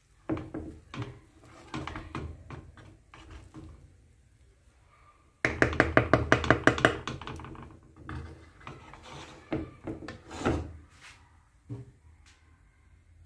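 Wooden spatula stirring and scraping cooked rice with peas in a pan, knocking against the pan now and then. About five and a half seconds in comes a fast run of about ten loud knocks lasting a second and a half.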